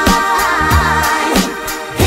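Dance music playing loud, with a steady beat, deep bass and a held melodic line.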